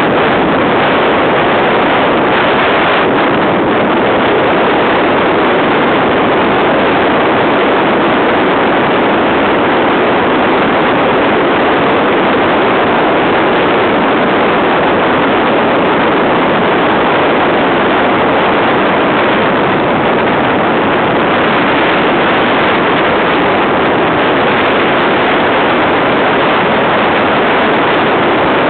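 Motorboat under way at speed: a loud, steady rush of wind across the microphone and water noise, with no distinct engine note.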